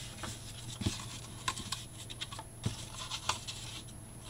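White cardstock being folded, creased and handled on a cutting mat: soft paper scrapes with about four light taps, over a faint steady low hum.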